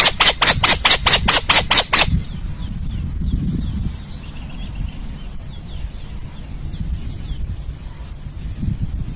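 Harsh hissing screeches from an owl, repeated about four to five times a second, stop about two seconds in. After that there is only a low rumble with faint, short, high chirps.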